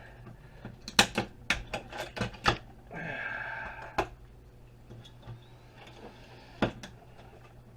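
Small brass contacts being snapped and pried off a heater's plastic parts: scattered sharp clicks and snaps, a quick run of them about a second in, then single clicks spaced out.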